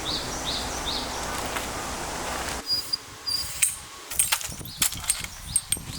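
Outdoor ambience with birds chirping over a steady rushing hiss. About two and a half seconds in, the hiss drops away abruptly, and a string of sharp clicks and knocks of objects being handled follows, with birds still chirping.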